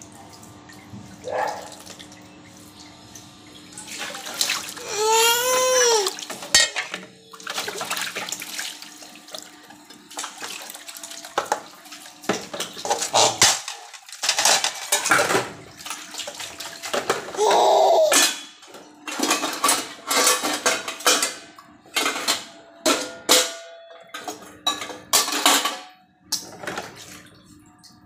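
Water splashing and sloshing in basins as hands wash stainless steel dishes, water poured and scooped, with occasional metal clinks of plates and pots, in irregular bursts. A short cry rises and falls in pitch about five seconds in.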